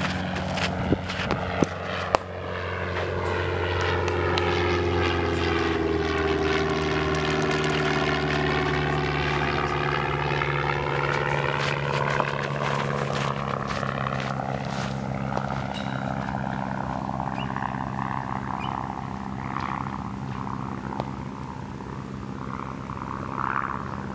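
An aircraft passing overhead: a droning hum that drops in pitch as it goes by, with a slow sweeping whoosh, loudest in the middle and then slowly fading. A few sharp knocks in the first two seconds.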